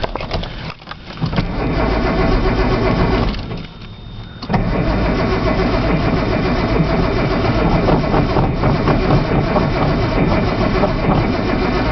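Datsun 280ZX straight-six being cranked on its starter in the cold and turning over without catching: a crank of about two seconds, a short break about three and a half seconds in, then a long crank to the end.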